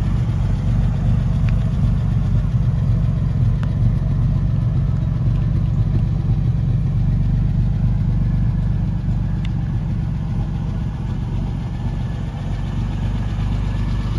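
1958 AC Aceca's straight-six engine idling steadily, heard from behind and beside the car through its twin tailpipes.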